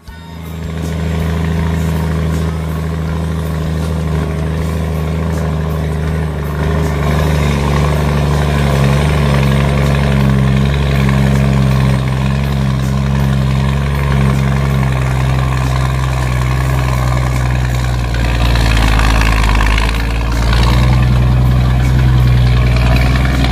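Scania truck's diesel engine with a straight-through exhaust running at low revs, a steady low rumble. The note shifts about three-quarters of the way through and gets a little louder near the end.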